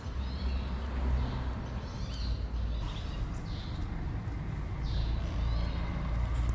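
Small birds chirping repeatedly over a steady low rumble.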